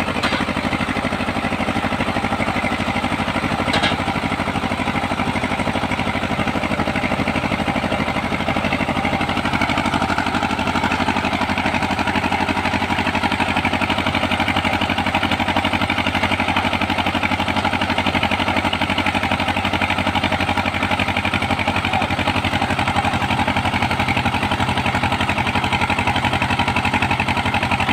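Engine of a small hydraulic borewell boring machine running steadily, a little louder from about ten seconds in, with one brief click about four seconds in.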